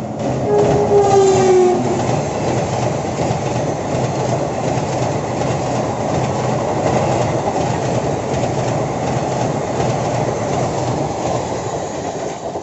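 WAP-7 electric locomotive sounding a short horn blast about half a second in, its pitch dropping slightly as it passes, followed by the steady rumble and clickety-clack of the passenger coaches' wheels running over the track at speed.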